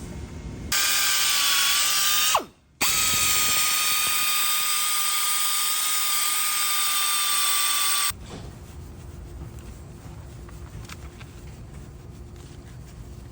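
Power tool running at a steady high whine with a hiss. About two seconds in it stops, its pitch falling, and after a short break it starts again and runs steadily until it cuts off about eight seconds in.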